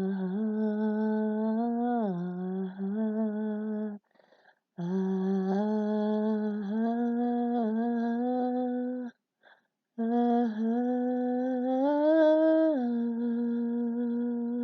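A single voice humming a slow, wordless worship melody, unaccompanied, in three long held phrases with short breath pauses about four and nine seconds in.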